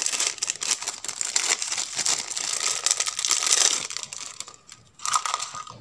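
A small clear plastic bag of resistors crinkling as it is handled, dense crackle for about four seconds, dying away, then a brief crackle again near the end.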